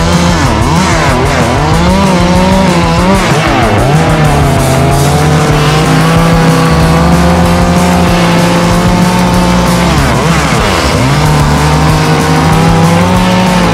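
Small two-stroke Echo chainsaw running at high revs while cutting into a wooden relief. Its pitch dips as the bar bites into the wood and climbs back, several times in the first few seconds and again near the end.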